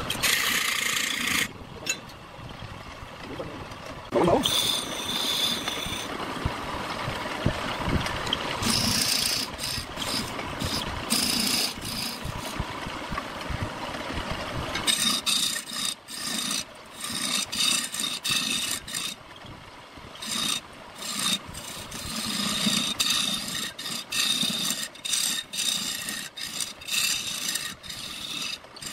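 A turning chisel cutting a long wooden spindle as it spins on a wood lathe: a rasping, scraping hiss of steel on wood. In the second half it comes in many short strokes as the tool is pressed on and eased off.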